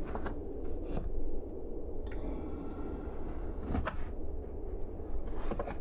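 Plastic center-console side trim panel being handled and worked against the console, giving light plastic clicks and knocks, with a steady squeak of plastic rubbing for about two seconds in the middle.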